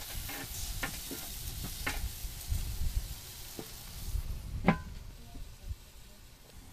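Meat skewers sizzling on the hot grate of a Weber portable gas grill, with a few light clicks as they are set down. About four and a half seconds in, the grill's lid shuts with a ringing metal clank, and the sizzle turns faint under it.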